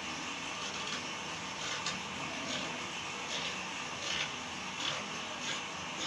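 Fabric scissors snipping through layers of cotton cloth, a short sharp cut about every two-thirds of a second starting nearly two seconds in, over a steady background hum.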